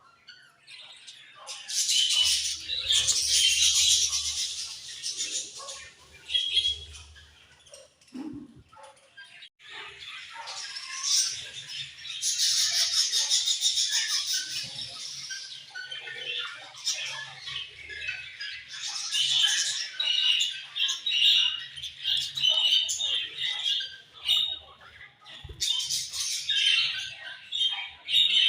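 A group of budgerigars chirping and chattering in bouts of high-pitched squawks and warbles, with several birds calling at once.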